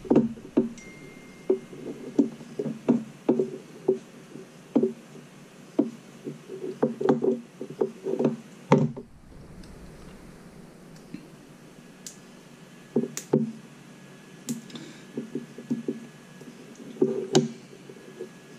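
Small metal heatsinks and loose hardware being handled and set down on a hard desktop: irregular light knocks and clicks, a few every second or two.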